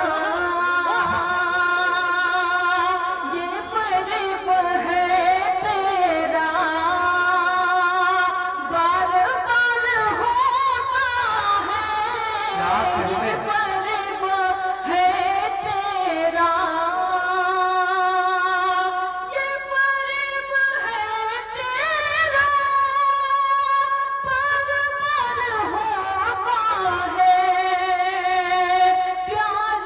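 A woman singing poetry in the melodic tarannum style of a mushaira, amplified through a microphone. She holds long, wavering notes, phrase after phrase.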